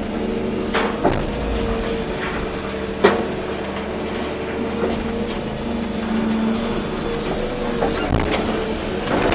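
Volvo EC240B excavator's diesel engine running steadily under hydraulic load, with a few sharp knocks from the machine, the loudest about three seconds in, and a short hiss a little after the middle.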